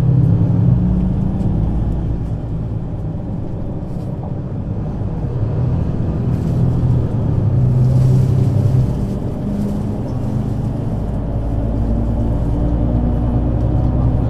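Mercedes-Benz Citaro C2 city bus's diesel engine pulling under power. The engine note builds, drops off about nine seconds in, then builds again.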